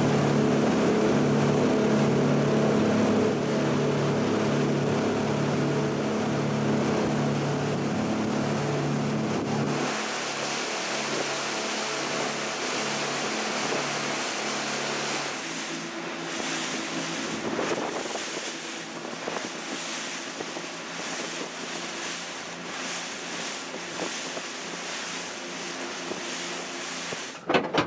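Boat motor running with a steady drone and a slow regular pulsing. It eases off about ten seconds in and fades further around the middle, leaving wind and water noise on the microphone.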